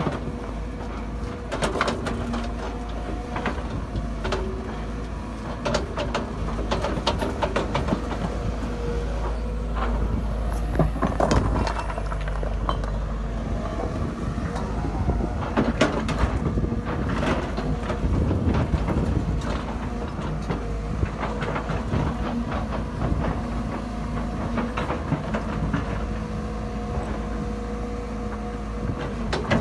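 Sumitomo hydraulic excavator's diesel engine running steadily under load, with rocks knocking and clattering against the steel bucket as it digs and rakes through stony ground.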